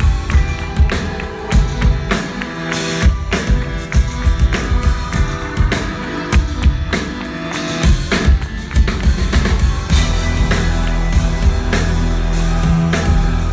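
Live rock band playing loud and amplified: drum kit beats with guitar. The drum strikes stand out through the first half, then a steady heavy low bass takes over.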